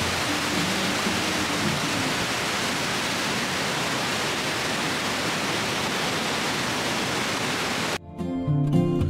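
A steady, even rushing hiss with faint music beneath it; about eight seconds in the hiss cuts off abruptly and strummed acoustic guitar music comes in.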